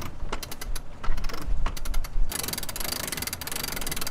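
Sailboat deck winch being cranked, its pawls clicking in quick succession and running together into a fast ratcheting about halfway through, as the mainsail is hoisted.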